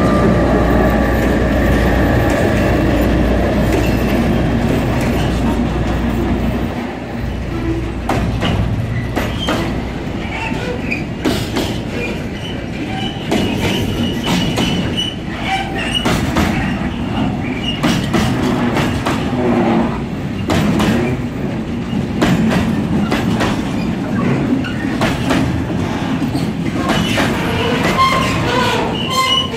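Serbia Cargo 661-series (EMD G16) diesel-electric locomotive running past close by, its engine a steady low hum that fades after about seven seconds. Then the loaded container wagons roll by, wheels clacking over rail joints, with brief high wheel squeals now and then.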